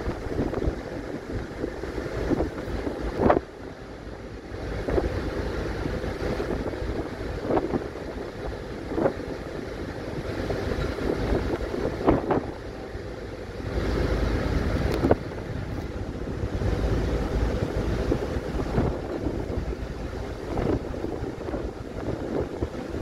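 Ferry under way on the river: a steady rush of water and engine noise, with wind gusting on the microphone and a few sharp knocks.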